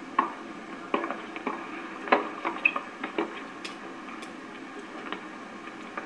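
Irregular sharp knocks of tennis balls being hit by rackets and bouncing on a hard court, a dozen or so spread unevenly, with a brief high squeak about two and a half seconds in.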